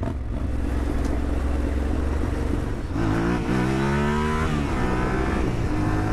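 Yamaha Ténéré 700's parallel-twin engine running at low revs. About three seconds in, the motorcycle accelerates and the engine note rises in pitch, with wind noise on the helmet microphone throughout.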